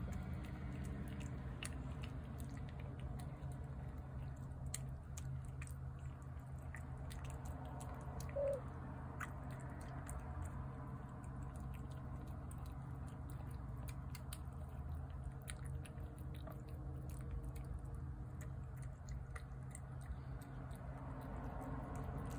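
Cat eating wet pâté cat food from a plate: a steady run of small wet chewing and lapping clicks over a low hum. A short squeak stands out about eight seconds in.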